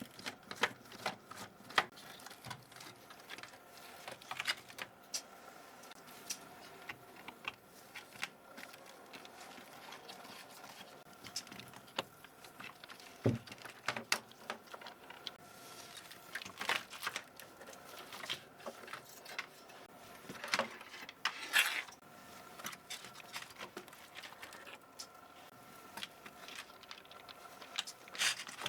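Irregular small clicks, taps and light scrapes from hand-cleaning a computer keyboard, with a few louder clatters.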